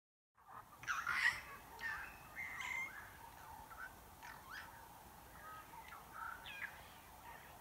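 Wild birds calling: a string of short chirps and whistled calls, the loudest about a second in, over a faint steady tone.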